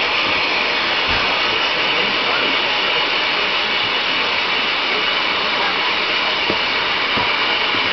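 Steady hiss of steam from a standing Southern Railway West Country class steam locomotive, even in level throughout.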